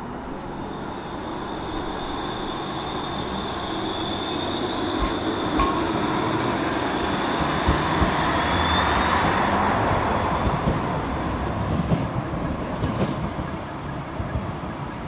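PESA Swing low-floor tram pulling away and passing close by: a high electric whine from its drive, rising in pitch as it gathers speed, with a few clicks and knocks from the wheels on the track. It grows louder to a peak about halfway through, then fades as it moves off.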